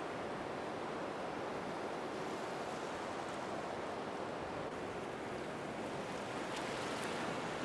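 Steady wash of ocean surf, an even rushing noise without distinct wave breaks, starting abruptly out of silence.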